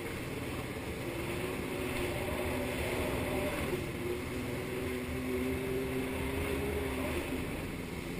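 Jet ski engine running at speed, its pitch wavering a little as the throttle shifts, over the rush of water spray.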